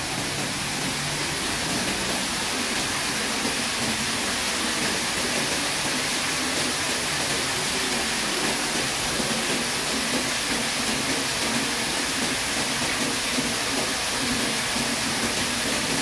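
A small waterfall pouring off a rock overhang as a thin curtain and splashing into a shallow pool: a steady rushing hiss of falling and splashing water that grows a little louder in the first couple of seconds, then holds.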